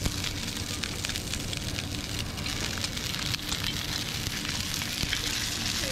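Toothpick-studded whole tomatoes sizzling in a frying pan: a steady hiss dotted with many fine crackles and pops, over a low steady hum.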